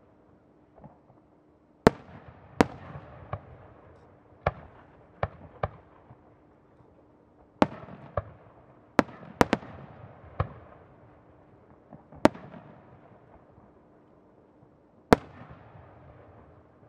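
Aerial firework shells bursting in a series of sharp booms at irregular intervals, about fourteen in all. Each boom is followed by a long, fading echo, and the loudest come about two seconds in and near the end.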